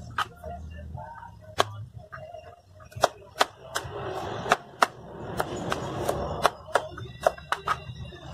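Chef's knife slicing garlic cloves on a plastic cutting board. Two sharp knocks come in the first two seconds, then from about three seconds in a run of quick, irregular taps, about three a second, as the blade strikes the board.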